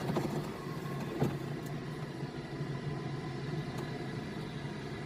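Large diesel engine of heavy mining equipment running steadily with a low, even hum, and a faint knock about a second in.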